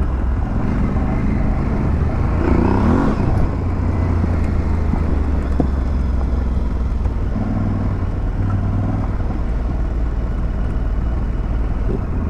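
Aprilia Tuareg 660's parallel-twin engine running under way on a dirt track, the engine note swelling a couple of times as the throttle changes.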